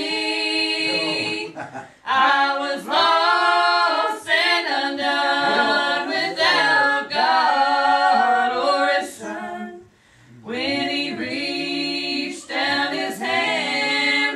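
A man and two women singing a gospel song in close harmony, unaccompanied. The singing pauses briefly about two seconds in and again about ten seconds in.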